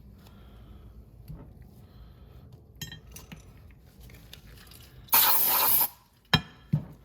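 Short hissing burst from an aerosol spray can, lasting under a second, followed by two sharp clicks. Small metal parts clink lightly before it.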